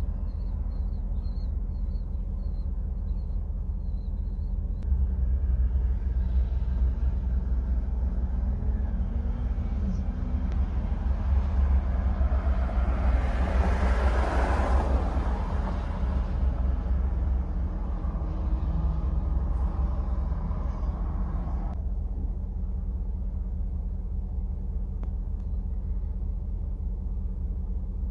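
Idling vehicle engine heard from inside the cab, a steady low rumble. About halfway through, a louder rushing swell of noise rises and fades. Some of the added noise cuts off suddenly about 22 seconds in.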